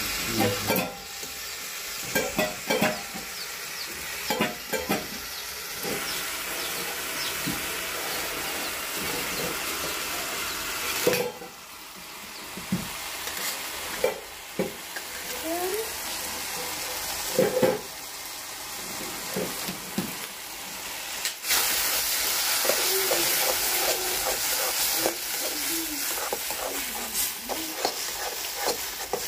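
Chicken and spice masala sizzling in an iron kadhai over a wood fire. A metal spatula scrapes and knocks against the pan again and again as it is stirred. The sizzle is quieter through the middle and loudest over the last third.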